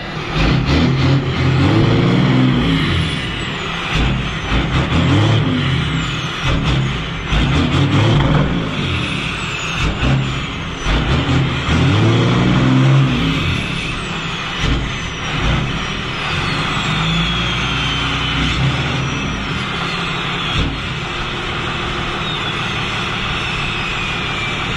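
5.9 12-valve Cummins turbo diesel rising in pitch and falling back about four times as the newly working exhaust brake is played with. It then runs more steadily, with a high whistle gliding down several times.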